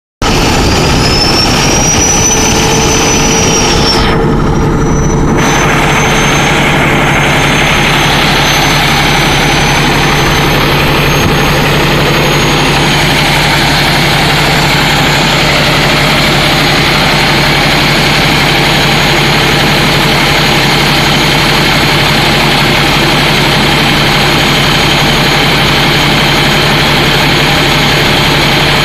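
Cummins ISX15 diesel engine running with a high-pitched turbocharger whistle over it. The whistle rises over the first few seconds, dips briefly, then holds steady.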